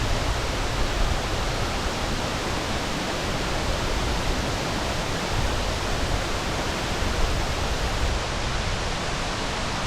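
Waterfall plunging into its pool, a steady full rush of falling water with a deep rumble underneath.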